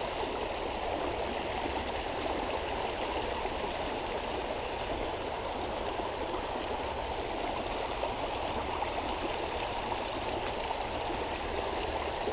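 Stream water rushing steadily over a low weir, a continuous even rush with no breaks.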